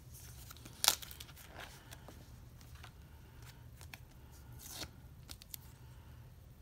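Hands handling a paper photocard holder and a small washi-taped packet: soft rustling and small clicks, with one sharp click about a second in and a longer scrape about three-quarters of the way through.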